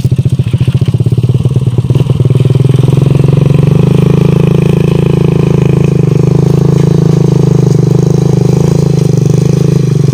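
Small motorcycle engine running steadily at close range, a fast even pulsing that grows a little louder about two seconds in.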